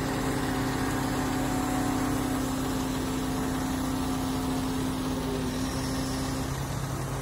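Mobile crane's engine running at a steady speed while it lifts a load, an even drone with no change in pitch.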